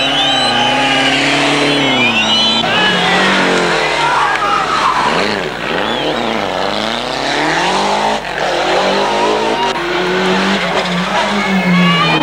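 Rally car driven flat out through a corner, its engine revving hard and dropping off again as the driver shifts and lifts, with tyres squealing.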